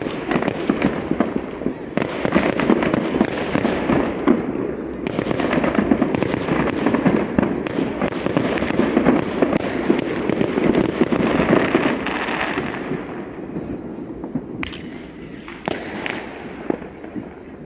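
Fireworks going off in a dense, rapid crackling that fades out about two-thirds of the way through, followed by a few separate bangs near the end.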